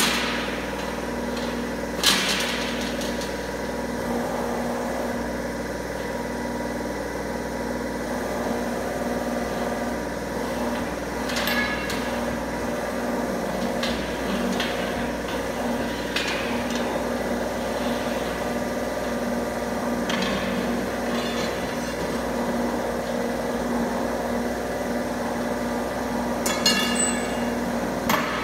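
Angle bar roll-bending machine running with a steady motor hum as a steel bar is rolled into a ring between its rollers. Occasional sharp metallic clanks from the bar striking the machine ring out over the hum, the loudest about two seconds in, with a short rattling run of clanks near the end.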